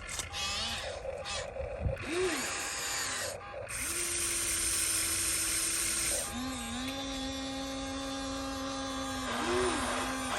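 Small electric motors and gearboxes of radio-controlled model construction machines whining as they run, starting and stopping, with a few short pitch swells where a motor speeds up and slows down.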